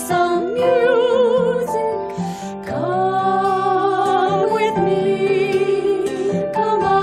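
Music: a woman singing long, wavering held notes over instrumental backing.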